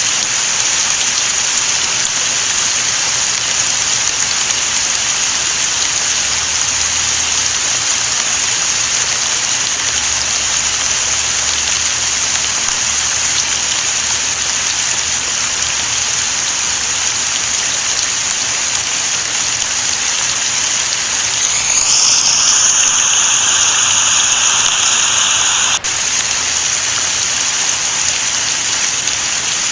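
Steady rain falling, an even hiss. About two-thirds of the way through, a higher-pitched sound rises in over the rain, holds for about four seconds and then cuts off suddenly.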